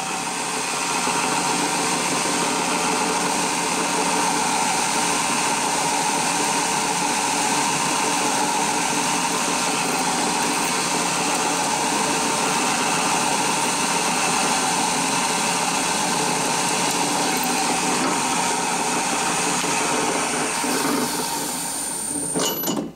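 Drill press running steadily as a freshly sharpened 3/32-inch twist drill bores into a steel bar, a constant motor hum and whine that cuts off just before the end.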